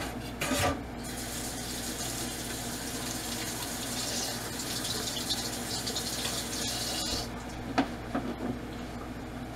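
Kitchen tap running steadily for about six seconds, then shut off suddenly, with a few light knocks before it starts.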